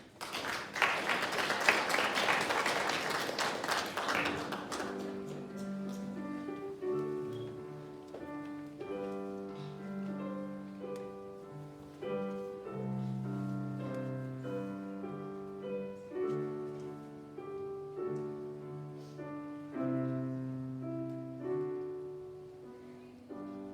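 An audience applauding for about four seconds, then a piano playing a tune in notes and chords.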